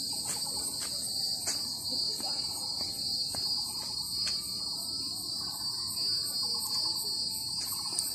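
Steady chorus of shrilling insects in the trees, a continuous high shrill, with a few sharp clicks scattered through it.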